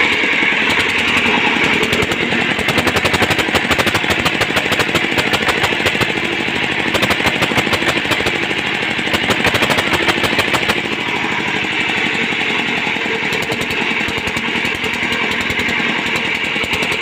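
Single-cylinder diesel pump-set engine running steadily after being hand-crank started, with a rapid, even knock of its firing strokes. It has just been repaired, with its fuel system bled of air.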